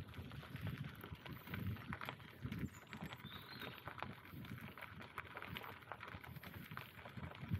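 Bicycle being ridden along a rough forest path: the tyres roll with a dense run of small irregular crackles and clicks, over uneven low rumbling bumps.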